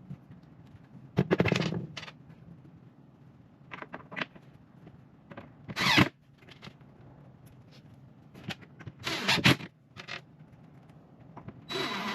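Power drill driving screws through a metal bracket into a plywood cabinet box, in several short rattling bursts a few seconds apart.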